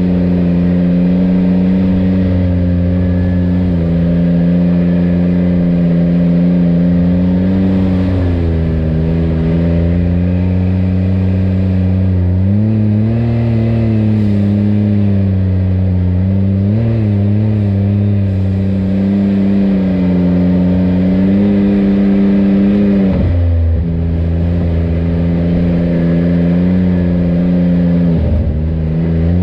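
Side-by-side UTV engine running on a trail under changing throttle. It holds a steady pitch, dips as the throttle is eased off about eight seconds in, climbs again a few seconds later, and drops briefly twice more near the end.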